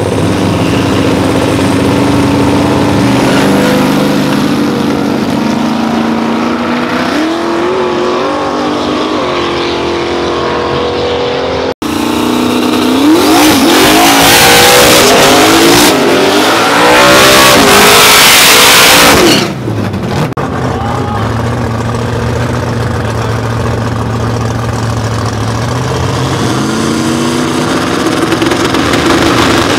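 Drag race car engines idling and blipping the throttle, the pitch wavering up and down. After an abrupt cut about twelve seconds in, an engine revs hard over a loud rushing hiss for about six seconds, then drops back to a steady idle.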